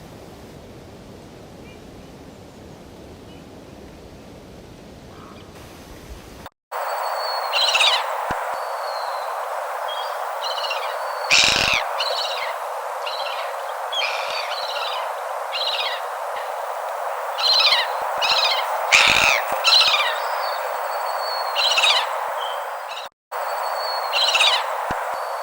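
Many short, repeated bird chirps and whistles over a steady hiss, starting abruptly about six seconds in after a stretch of faint, even background noise.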